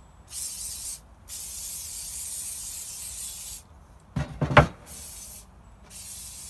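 3M Super 77 spray adhesive aerosol can spraying in hisses: a short burst, then a steady spray of about two seconds. About four seconds in there is a brief knocking clatter, the loudest sound, and softer spraying follows near the end.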